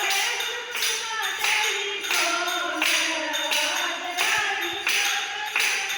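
A woman singing a Hindi devotional bhajan over a steady jingling percussion beat, about three strokes every two seconds.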